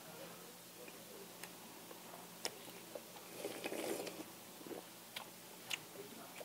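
Faint close-up eating sounds: a few sharp little clicks of utensils and mouth, and a short slurping sip of ramen broth from a foil bowl a little past halfway.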